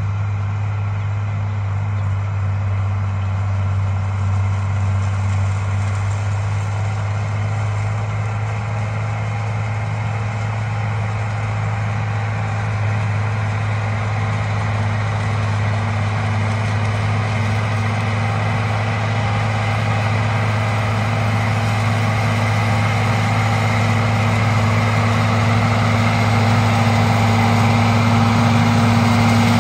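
Case IH 9130 four-wheel-drive tractor's diesel engine pulling a tillage implement across a field, a steady low hum that grows gradually louder as the tractor comes nearer.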